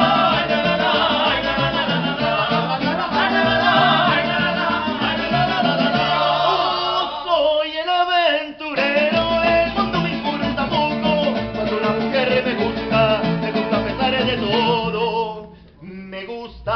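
Mariachi band singing together over strummed vihuela and guitars with a bass line beneath. The music breaks off briefly about halfway through, then resumes, and turns much quieter near the end.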